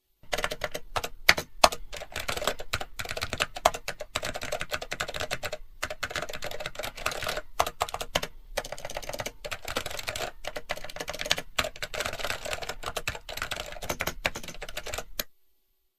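Computer keyboard typing: fast, uneven key clicks that keep up throughout and stop suddenly near the end.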